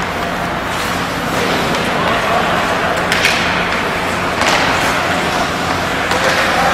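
Ice hockey game in an arena: skates scraping the ice, with a few sharper hissing scrapes about three and four and a half seconds in, over a steady arena hum and distant voices.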